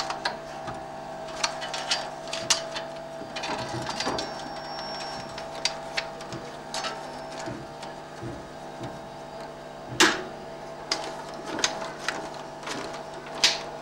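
Lens turret of a 35 mm cinema projector being handled: irregular metal clicks and knocks over a steady machine hum, with two louder clicks in the last few seconds.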